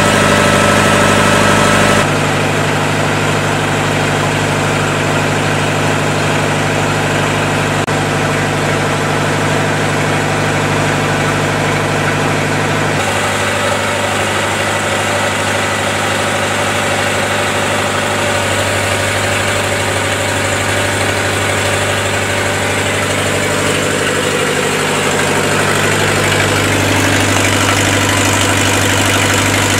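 Four-cylinder Lister diesel engine of a generator set running steadily at constant speed during its test run, running as expected. Its tone shifts abruptly twice, about two and thirteen seconds in, and grows slightly louder near the end.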